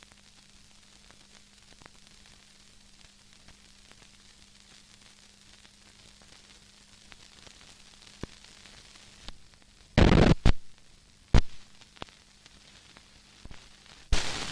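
Hiss and a low hum from an old film print's soundtrack with scattered faint clicks, then loud bursts of crackling noise and pops about ten seconds in and again near the end, as the film runs out after the credits.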